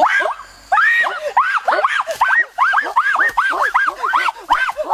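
Animal cries repeated over and over: short cries that rise and fall in pitch, several a second and overlapping, as from more than one animal.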